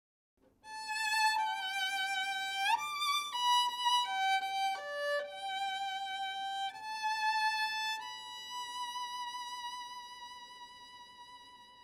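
Solo violin playing a slow melody with vibrato, one note at a time, sliding up to a higher note about three seconds in. The last note is held from about eight seconds in and fades away.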